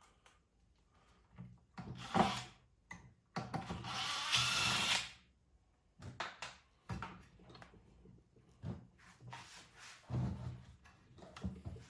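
A cordless drill-driver with a T20 Torx bit runs in short bursts, backing screws out of an electric car's onboard charger housing. The longest and loudest run lasts about a second and a half, about four seconds in, among scattered clicks and knocks of the tool and metal parts.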